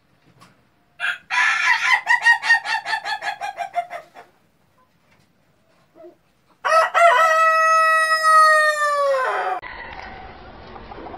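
Rooster crowing: first a stuttering call of quick pulses that slide down in pitch over about three seconds, then after a pause a long crow held on one note that drops away at the end. A steady background noise comes in near the end.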